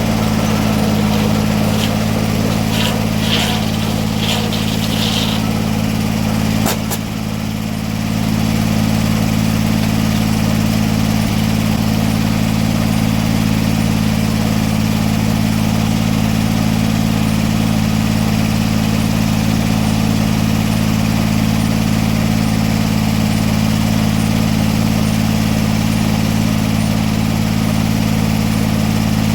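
An engine running steadily at constant speed, with a brief click and a short drop in loudness about seven seconds in.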